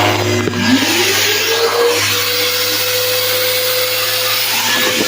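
Festool RTS 400 rectangular orbital sander running with a Festool CT 36 dust extractor: a motor spins up, its pitch rising over the first two seconds and then holding steady, over a steady hum and a strong rush of suction air.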